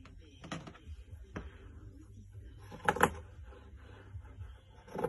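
Scissors cutting fabric on a work table: a few short sharp clicks and snips, the loudest about three seconds in.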